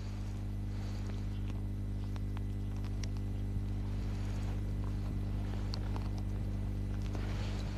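Steady electrical mains hum with faint hiss and a few scattered faint clicks: the noise floor of an old 1960s television recording's soundtrack.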